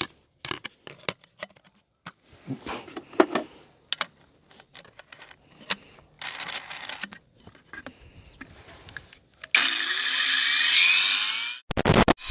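Clicks and knocks of handling a cordless angle grinder, then about nine and a half seconds in the grinder spins up with a rising whine and runs loudly for about two seconds, stops briefly, and starts again at the very end.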